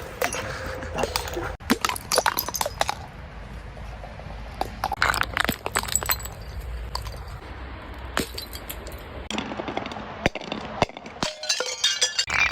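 Glass being broken and crushed: irregular sharp cracks and clinks of glass and shards, coming in clusters, with a dense crackle of crunching glass near the end.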